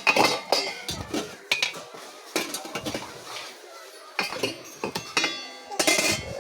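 Metal cookware and utensils clattering and clinking as they are handled: a string of sharp knocks, each with a brief metallic ring.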